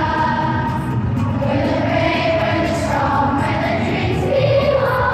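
A large children's choir singing in unison with a musical accompaniment, holding long notes, in a large arena.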